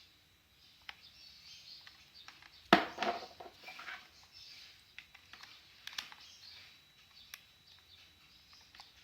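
Clicks and plastic handling noise as RJ45 plugs on a freshly crimped straight-through UTP cable are pushed into a LAN cable tester, with one sharp snap a little under three seconds in and smaller clicks after it.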